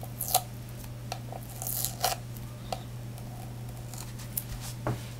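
Sticky adhesive being peeled and picked off the plastic base of a small streaming box by fingers: a few short tearing rasps, the loudest about a third of a second in and around two seconds in, over a steady low hum.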